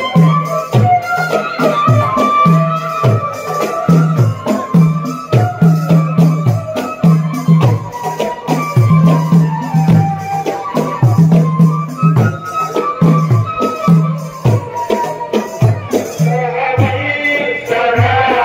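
A group of men singing a devotional chant over a steady drum beat with rattling percussion. Near the end a single voice comes in louder with a long held line.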